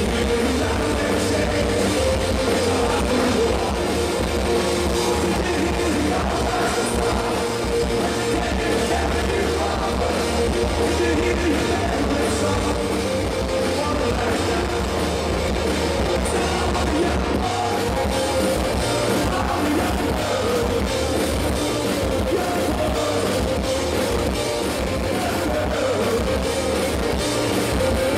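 Live rock band playing: electric guitars and drums with singing, recorded from within the crowd.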